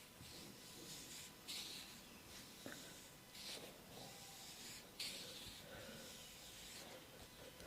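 Slow massage strokes rubbing over skin, each a soft hiss, coming every one and a half to two seconds.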